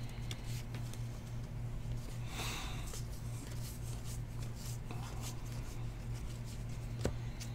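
Baseball trading cards being flipped and slid against each other by hand: faint rubbing and light ticks, with a brief louder rustle about two and a half seconds in and a sharp click near the end, over a steady low hum.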